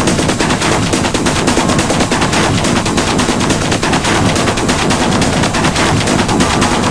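Loud, hard electronic dance music with heavily distorted percussion: a fast, unbroken stream of sharp hits, many to the second, with no let-up.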